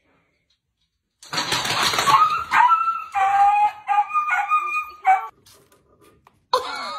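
A husky-type dog's vocal outburst: after about a second of quiet, a rough burst of barking, then a run of short pitched yowling cries lasting around four seconds.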